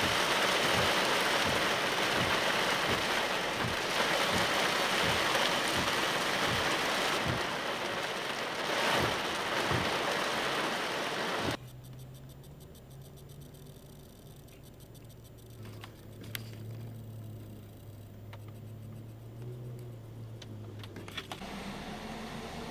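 Heavy rain hissing, with repeated low thumps, for about the first half. It cuts off suddenly, leaving a vehicle engine running with a low steady hum and a few faint clicks. Near the end a slightly higher engine note rises.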